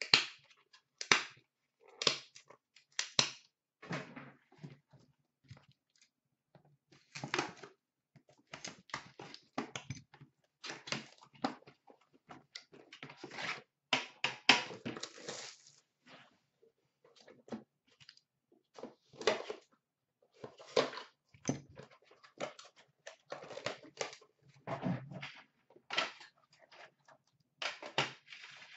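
Hands opening an Upper Deck The Cup hockey card box: irregular rustling and crinkling of the packaging, with clicks and knocks as the box is handled on a glass counter.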